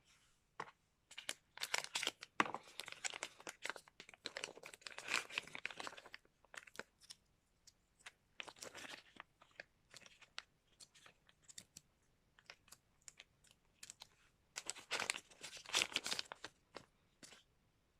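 Packaging being handled and opened: bursts of rustling and crinkling wrapping, with scattered clicks and taps in between.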